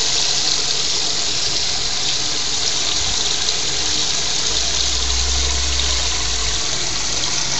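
Livewell aerator pump running, its perforated spray bar showering water into the livewell: a steady splashing hiss of falling water.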